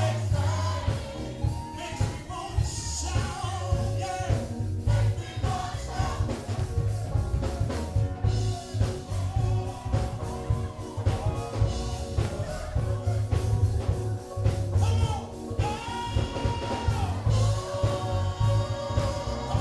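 Live gospel praise music: singers over a band with a strong, pulsing bass beat.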